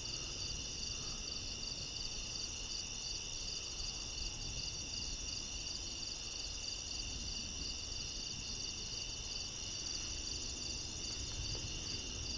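A steady night chorus of crickets, several high pitches ringing at once, one of them pulsing rapidly, over a low steady rumble of background noise.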